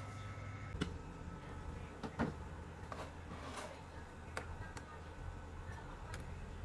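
A metal ladle knocking and clinking against a metal soup pot several times while skimming foam off pork broth, over a steady low hum.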